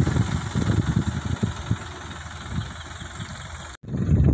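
New Holland 3230 tractor's diesel engine running under a full trailer load of paddy straw as it drives past, the sound fading as it moves away. Near the end the sound cuts out abruptly and comes back loud.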